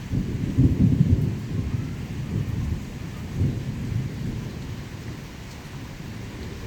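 A clap of thunder breaks in suddenly and rumbles low, loudest in the first second, rolling on in further swells before dying away, over steady heavy rain.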